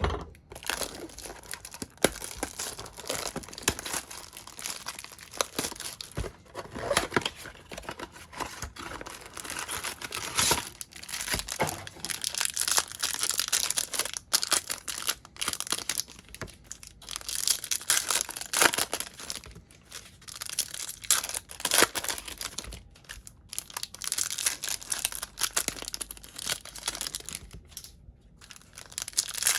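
Trading card packs being torn open and their plastic wrappers crinkled, an irregular run of rustling and crackling with sharper snaps.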